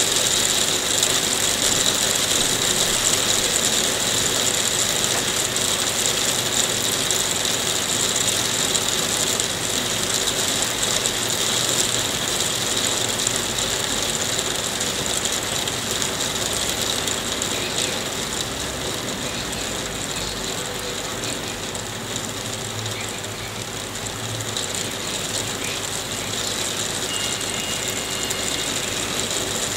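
Hailstones falling thick and fast: a continuous clatter of countless small hits that eases slightly in the second half.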